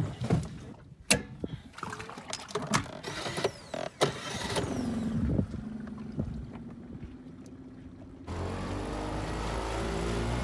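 Knocks and bumps in an inflatable dinghy, then its small outboard motor starts about four seconds in, its pitch rising and settling into a steady idle. Near the end the outboard runs louder and steadier as the dinghy moves under way.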